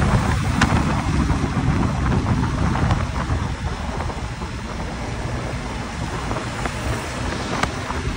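Wind rumbling on the microphone of a camera riding along a city road, over tyre and road noise and passing car traffic. A couple of sharp clicks, about half a second in and near the end.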